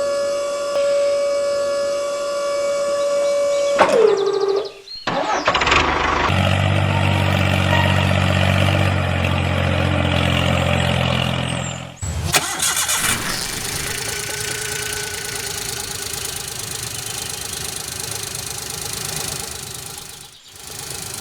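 A steady, high, siren-like tone that sags and dies away about four seconds in, then an engine starting and running at a low, even idle. After an abrupt cut about twelve seconds in, an engine runs on in a higher, noisier, steady way.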